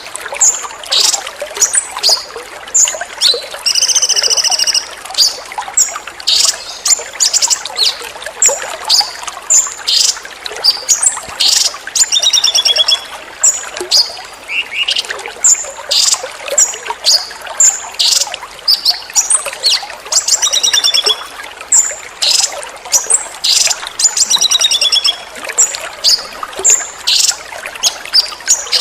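A songbird sings in many short, sharp high-pitched bursts and fast trills, over a steady trickle of running water.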